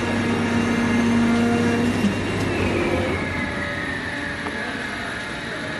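CNC digital cutting machine running: a steady hum that stops about two seconds in, then a whine that slowly falls in pitch, as a motor winding down does.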